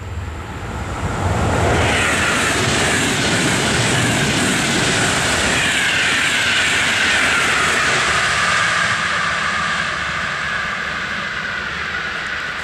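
Passenger train of Trenitalia Intercity coaches passing close by at speed: a steady rush of wheels on rail that builds over the first second or two and eases off as the train draws away near the end, with a whine that falls slowly in pitch as it goes by.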